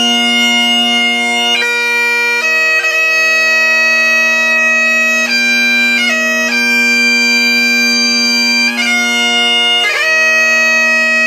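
Bagpipes playing a slow tune of long held notes over a steady drone.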